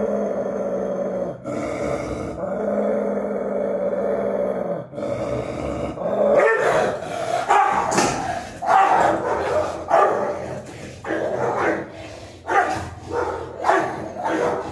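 Pit bull growling low and steady. About six seconds in it breaks into a string of loud barks, roughly one a second.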